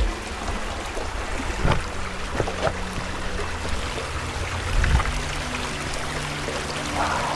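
Steady running water, like a small stream flowing, with a couple of dull low thumps about two seconds and five seconds in.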